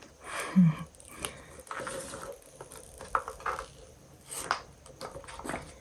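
Soft, scattered clicks, taps and rustles of a new iPhone 15 Pro and its packaging being handled.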